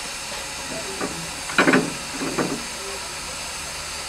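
Steam locomotive hissing steadily, with two short louder sounds about a second and a half and two and a half seconds in.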